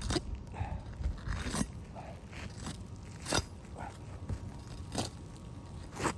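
Footsteps crunching and scuffing on a worn asphalt-shingle roof, a handful of irregular gritty steps and scrapes.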